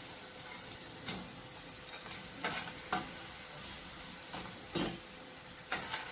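Hot oil sizzling steadily around frying anchovies, with a metal slotted spoon knocking and scraping against the pan about eight times at irregular intervals as the fried fish are lifted out.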